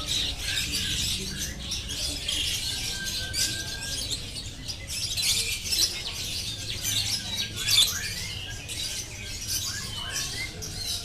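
Many caged birds chirping and twittering at once, a dense chorus of short high calls, with one louder call about eight seconds in.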